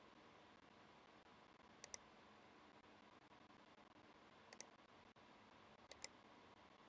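Three faint double clicks, each a quick pair of sharp clicks, spaced a couple of seconds apart over a low steady hiss.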